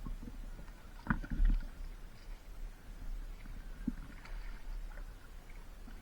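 Paddle strokes and water sloshing around a stand-up paddleboard, with a few dull knocks about a second in, at about a second and a half, and near four seconds.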